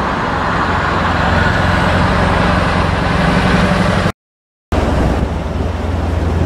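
Road traffic passing on a busy road: a steady rush of tyres with a deep engine hum. It breaks off in a short gap of silence a little over four seconds in.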